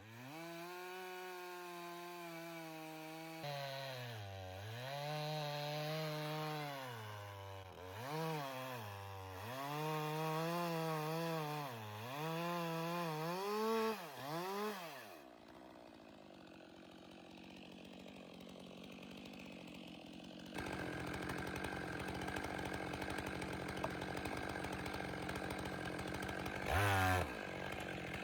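Two-stroke chainsaw on a chainsaw mill, its engine revving up and down as it cuts through a log. About halfway through the revs fall away steeply. Steady, quieter cutting and engine noise follows and gets louder suddenly later on.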